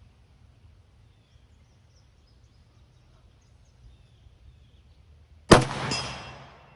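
A single rifle shot from a Romanian PSL semi-automatic 7.62×54R rifle, fired near the end. The report dies away over about a second.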